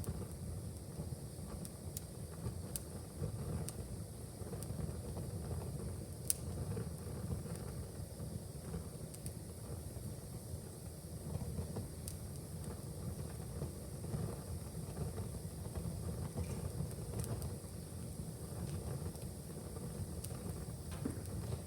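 Wood fire burning in a fireplace: a steady low rumble of flames with scattered sharp crackles and pops, one louder pop about six seconds in.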